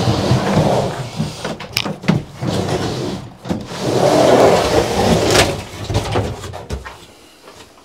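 Kitchen cabinet being shoved and slid into a pickup truck bed: rough scraping in surges, with several sharp knocks, the loudest scrape about four seconds in.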